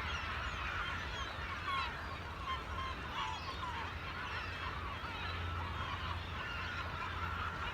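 A flock of seagulls calling over feeding fish, many cries overlapping without a break.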